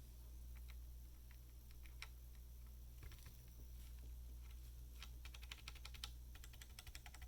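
Faint typing on a Tecware Phantom 87 mechanical keyboard with Outemu brown switches lubed with Tribosys 3203. A few scattered keystrokes come first, then quick continuous typing from about five seconds in.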